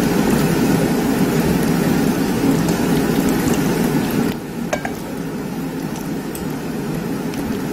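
Pork belly, pork neck and garlic sizzling in a hot grill pan, a steady frying hiss that dips briefly about halfway, followed by a light click of metal tongs.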